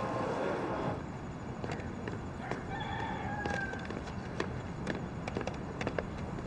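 A rooster crowing once, a single drawn-out call about two and a half seconds in, over a steady low background. Light clicks follow, in step with footsteps on the paved terrace.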